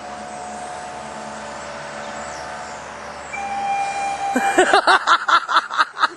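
Steady traffic and engine noise as a small steam road engine drives along a busy street. Near the end a brief steady tone is followed by a loud, rapid warbling series of pitched pulses, about six a second, lasting a second and a half, which cuts off suddenly.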